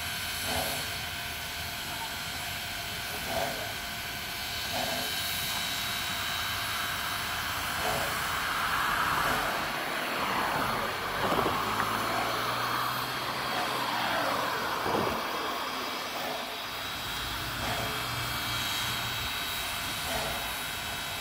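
Wilmington & Western No. 58 steam locomotive standing with steam up: a steady hiss with a few high steady tones and occasional soft puffs. From about eight seconds in, a louder rushing swell builds with falling and rising pitch sweeps, then fades after about sixteen seconds.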